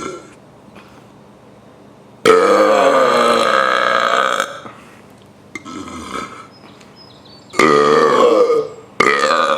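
A man burping loudly, several long drawn-out burps in a row. The longest, about two seconds, comes a couple of seconds in. A shorter, fainter one follows, then two more loud ones near the end.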